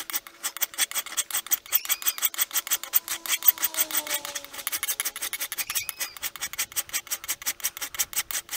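A hand file rasping back and forth in rapid, even strokes, several a second, as it carves a choil into a steel knife blank forged from a recycled pry bar. The steel is still unhardened and soft, so the file cuts into it easily.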